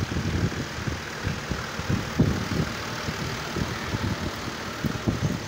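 Farm tractor's diesel engine running as the tractor drives and turns close by, with a low, uneven chugging.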